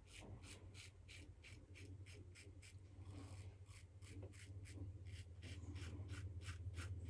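Double-edge safety razor, a PAA Original DOC with a Wizamet blade, scraping through stubble in quick short strokes, about five a second; each stroke is a faint crisp rasp, the audible feedback of the blade cutting hair.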